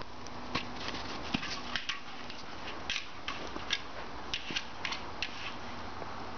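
Crunching in snow, as of footsteps: irregular crisp crunches and clicks, a few a second, over a steady hiss.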